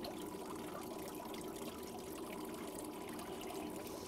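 Steady trickle of water running from the egg counter tank's white PVC discharge pipe into a mesh strainer below.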